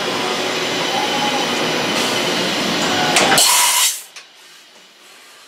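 Mazak VCU 500A five-axis CNC machining center milling metal: a loud, steady cutting noise that swells into a brief louder burst about three and a half seconds in, then cuts off suddenly, leaving a quiet machine hum.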